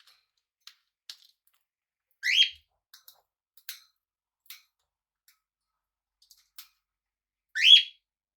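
Pet parrot giving two short, loud, rising calls about five seconds apart, with faint scattered clicks in between.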